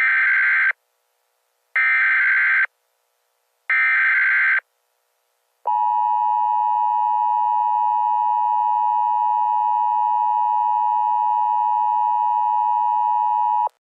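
Emergency Alert System header: three short bursts of SAME digital data tones about two seconds apart, then the long steady EAS attention tone, which runs about eight seconds and cuts off suddenly near the end. It is the signal that an emergency broadcast message is about to follow.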